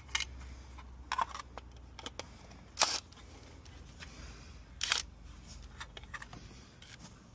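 Light clicks and knocks as a plastic isolator enclosure is handled and held against a brick wall, with a cordless driver's long bit pushed through it. Two short, louder bursts come about three and five seconds in.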